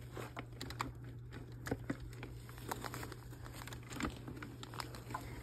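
Light handling noise of plush animated figures and their cords being moved about: irregular soft clicks, taps and rustles, over a steady low hum.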